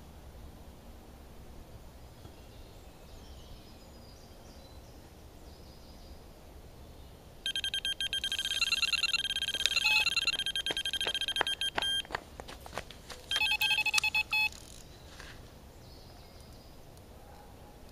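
Electronic carp bite alarm (Delkim) sounding a fast, continuous run of beeps for about four seconds as line is pulled through it. It breaks into scattered clicks, then gives a shorter burst at a lower pitch. It is a take: a carp has picked up the bait and is running, lifting the bobbin.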